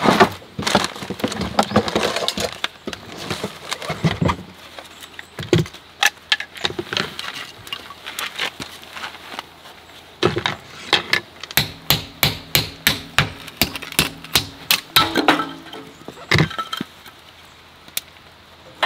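Gear clattering in a storage box, then a quick run of sharp wooden knocks from a bushcraft knife being driven into a stick of firewood to split it for kindling, with a last single knock.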